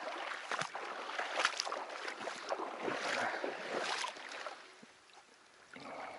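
Wading steps through shallow flooded marsh water: irregular sloshing and splashing, quieting briefly near the end.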